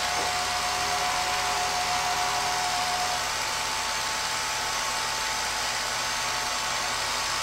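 Film projector running, a steady motor whir with a faint high hum.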